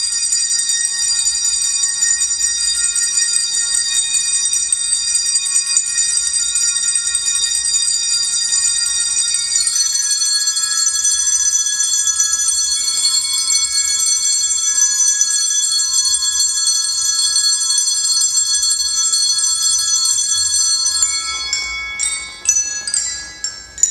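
Handbells ringing continuously in a dense, high chord of many steady tones. About ten seconds in, the chord shifts to a new set of pitches. In the last few seconds the sustained ringing breaks up into separate strikes, several in quick succession.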